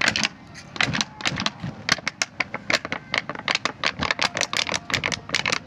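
Burning petrol and a melting plastic bottle crackling: a fast, irregular run of sharp snaps and pops.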